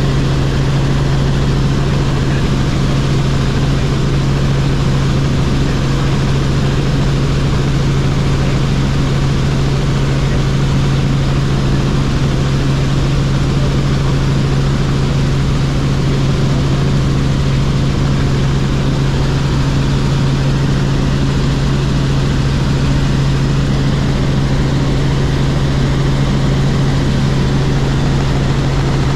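Robinson R44 Clipper helicopter in flight, heard from onboard: the piston engine and rotors give a loud, steady drone with a strong low hum.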